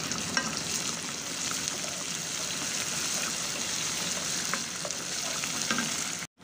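Chopped onions and ginger-garlic paste frying in hot oil in a pot: a steady sizzle, with a wooden spoon stirring through it and now and then tapping the pot. The sound cuts out abruptly for a moment near the end.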